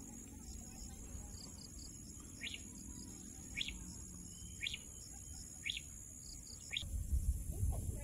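Steady high-pitched insect trill, with a bird giving a short sharp chirp about once a second, five times. A low rumble comes in near the end.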